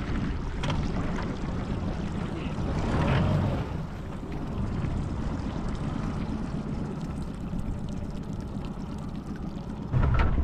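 Steady wind and water noise around a small aluminium boat, with water splashing and pouring off as a crab pot is hauled up by hand on its rope. Near the end the wind noise on the microphone suddenly gets louder.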